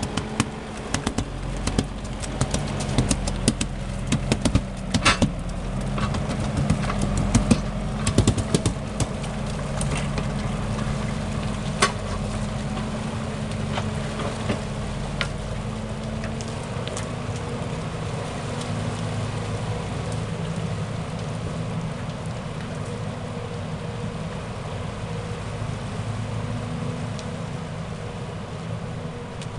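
Valtra forestry tractor's diesel engine running steadily as it hauls a loaded log trailer through mud, with many sharp knocks and cracks in the first dozen seconds. The engine grows gradually fainter toward the end as the tractor moves away.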